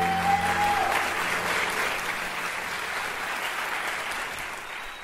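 Audience applauding, with the last held chord of the backing music dying away beneath it over the first two seconds or so, and a short high call from the crowd right at the start. The applause slowly dies down toward the end.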